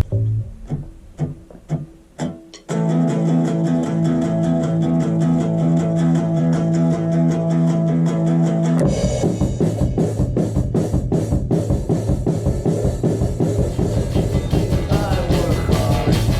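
Rock band music: a few scattered drum hits, then a held chord ringing steadily, then the full band with drums kicking in about nine seconds in and playing a steady beat.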